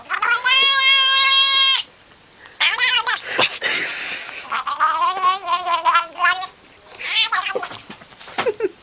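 An animal calling loudly: one long, steady, held wail, then several shorter wavering cries.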